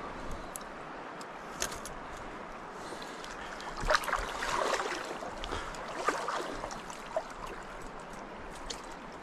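River water running steadily, with scattered small clicks and a louder spell of splashing or rattling about four seconds in.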